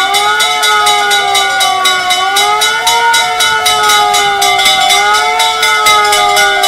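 Fire engine siren wailing, its pitch rising and falling slowly every two to three seconds, together with the engine's fire bell ringing in rapid, even strikes, about seven a second.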